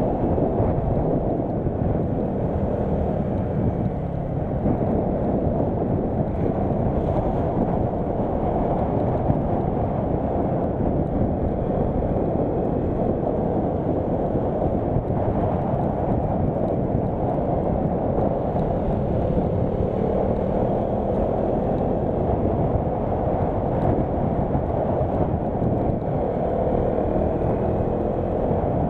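Moving train running steadily, heard as a continuous low rumble without change or break.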